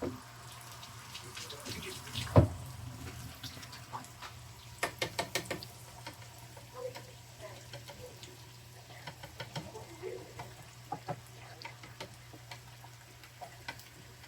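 Quiet kitchen work at the stove: a faint steady hiss under scattered clicks and taps of utensils and eggs, with a sharp knock about two seconds in and a quick run of clicks about five seconds in.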